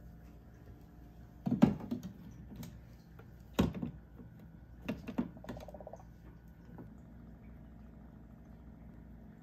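Hard plastic clunks and knocks as the Rotimatic roti maker's clear plastic ingredient containers and their orange lids are handled and pressed into place: several sharp knocks in the first six seconds with a short rattle among them, then only a faint hum.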